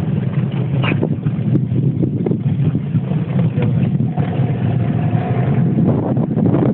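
Boat motor running steadily with a low hum, with wind noise on the microphone.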